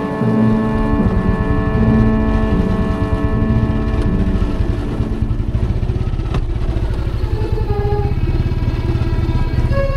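Motorcycle engine running steadily at low speed on a rough track, with background music of held notes laid over it.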